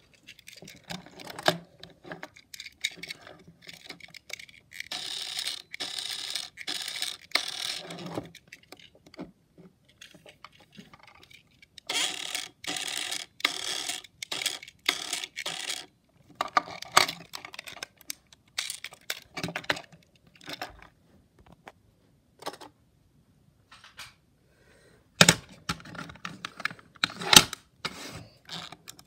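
Small hard plastic clicks and rattles from a Hexbug Witch Doctor toy battlebot. They come in several runs of rapid clicking a few seconds long, with scattered single clicks between.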